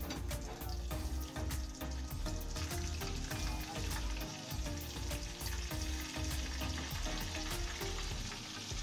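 Chicken pieces sizzling as they deep-fry in hot oil in a saucepan, with the tongs occasionally knocking in the pot. The sizzle grows louder about two and a half seconds in as more chicken goes into the oil.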